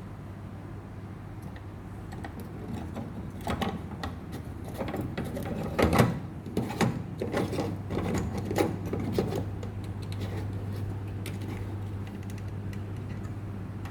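Irregular plastic clicks, rattles and knocks from handling a front-loading washing machine's drain filter and its housing, over a steady low hum. The knocks cluster between about four and ten seconds in.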